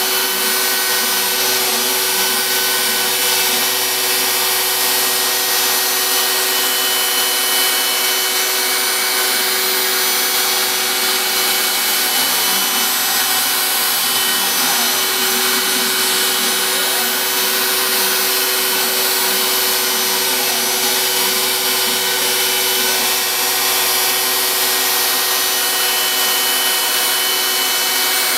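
Home-built CNC router cutting MDF: the router spindle runs with a steady whine and hiss while the axis motors whir, their pitch rising and falling as the cutter changes direction along the toolpath.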